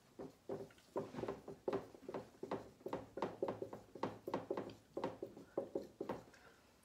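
Writing with a pen or stylus: a run of faint, short taps and scratches, about three to four a second, that stops near the end.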